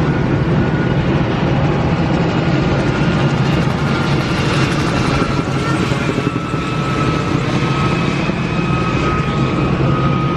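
Aircraft engine running, a loud steady drone with a thin whine that slowly falls in pitch.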